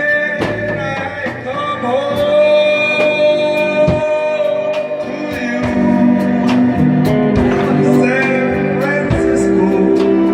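Recorded music: a slow song with held, gliding melody notes over guitar and a steady drum beat.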